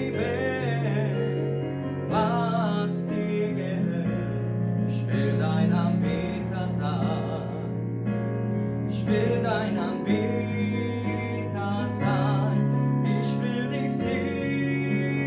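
Music of a song: keyboard and guitar over bass notes that change every two seconds or so, with a wavering melody line above and a few sharp accent hits.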